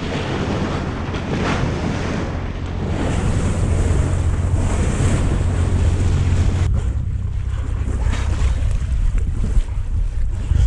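Wind buffeting the microphone over water rushing past the bow of a moving boat, with a steady low rumble underneath. The higher hiss drops away suddenly about two-thirds of the way in.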